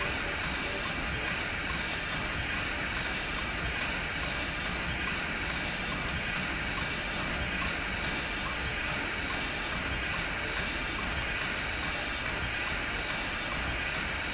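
Passenger train hauled by Strasburg Rail Road steam locomotive No. 90, a 2-10-0 Decapod, running with a steady, even rushing noise.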